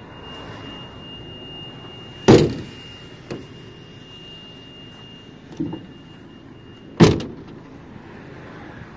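Metal bangs from the minibus's doors and body: two loud sharp bangs about five seconds apart, each with a short ringing tail, and two smaller knocks between them. A faint steady high-pitched tone stops at the second bang.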